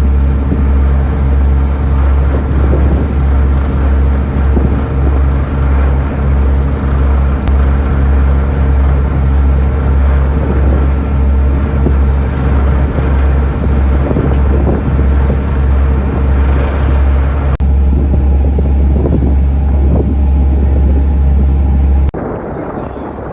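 Steady low drone of a roll-on/roll-off car ferry's engines heard on board: a constant deep hum with rumbling overtones. It drops away suddenly near the end.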